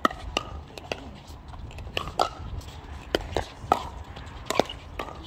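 Pickleball paddles striking a hard plastic ball in a fast doubles exchange at the net: a string of sharp pops in quick succession, some under half a second apart.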